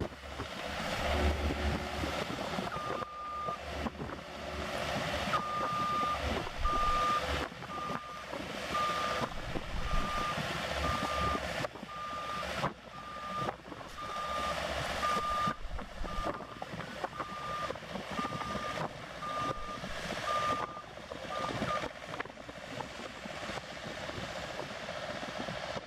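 Reversing alarm on heavy work equipment beeping at about one beep a second over a steady noisy background. The beeping starts about three seconds in and stops a few seconds before the end.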